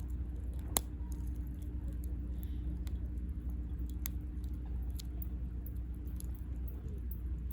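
Wood campfire crackling: a few sharp pops of burning wood, the loudest about three-quarters of a second in and others around three, four and five seconds in, over a steady low rumble.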